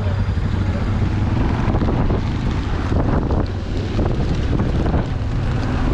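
Moving vehicle, a steady low engine and road rumble, with wind buffeting the microphone.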